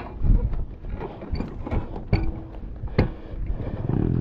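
Sharp mechanical clicks and knocks from a pit bike's gear lever being worked by hand, about six over four seconds. Near the end the bike's engine starts running with a steady low note.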